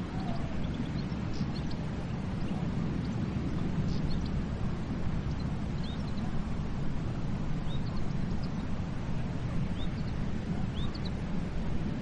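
Steady low rumble of sea surf, with short, faint, high bird chirps scattered throughout.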